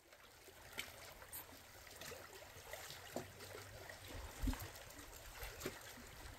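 Gentle sea water lapping and trickling among shoreline rocks, a faint steady wash with many small splashes and drips, and a few low bumps, the loudest about halfway through.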